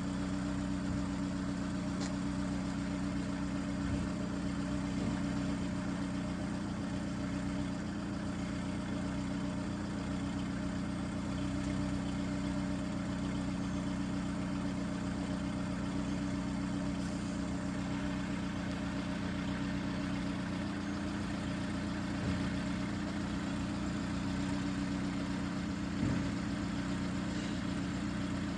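Lada Kalina's four-cylinder petrol engine idling steadily at the tailpipe while warming up after a cold start. The engine was freshly rebuilt and is being run in.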